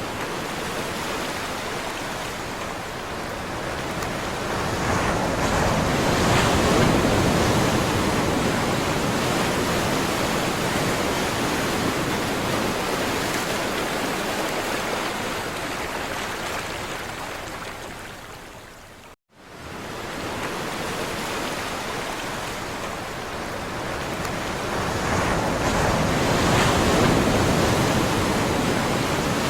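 Ocean surf: a steady rush of waves, swelling louder twice as larger waves break and wash in. The sound cuts out for an instant about two-thirds of the way through.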